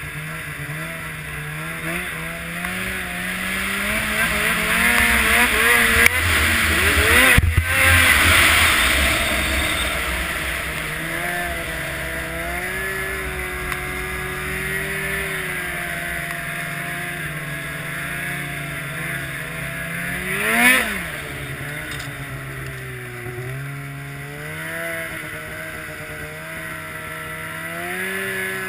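Snowmobile engine running under way. Its pitch climbs over the first several seconds into the loudest stretch, where a rushing hiss of wind and snow joins it. It then settles into steady cruising with small rises and falls, and there is one quick sharp rev about two-thirds of the way through.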